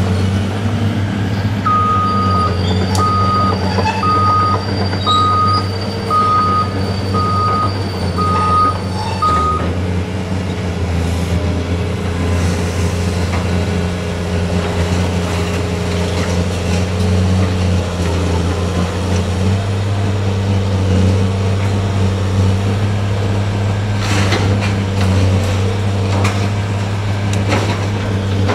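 Tracked demolition excavator's diesel engine running steadily. A backup alarm starts about two seconds in and beeps about eight times, roughly once a second. Near the end come a few sharp knocks of debris breaking.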